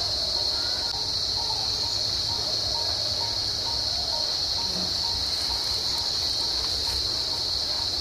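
Steady high-pitched insect chorus, crickets or cicadas, with a faint short note repeated a few times a second underneath.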